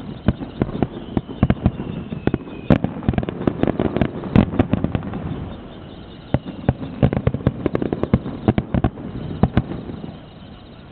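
Fireworks going off: a dense, rapid run of sharp bangs and crackling pops, easing for a moment around the middle, then starting again and dying away near the end. A faint falling whistle sounds early on.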